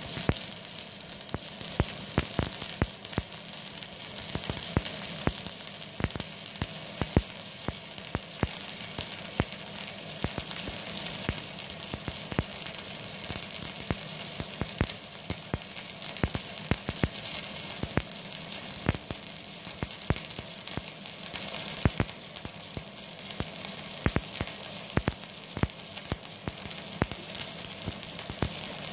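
Stick (MMA) welding arc of a 4 mm electrode at about 157 amps from an inverter welder, crackling and sizzling steadily with frequent sharp pops.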